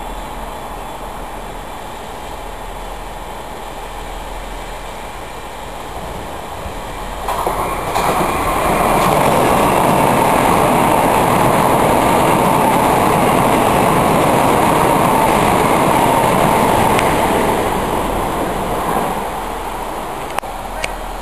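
Southern electric multiple unit running past along the platform. Its wheel-and-rail noise swells about seven seconds in, holds loud for around ten seconds, then fades away.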